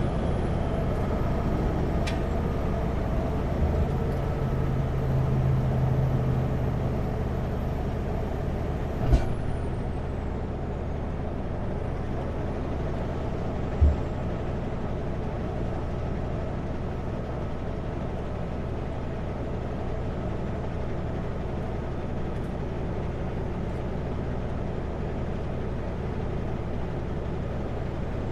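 Kenworth W900L semi truck's diesel engine and road noise at cruising speed, heard inside the cab. About nine seconds in a click sounds and the engine note drops slightly, and a single thump follows a few seconds later.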